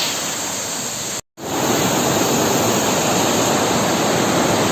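Waterfall rushing: a steady wash of falling water. It drops out for a moment about a second in, then comes back louder and fuller.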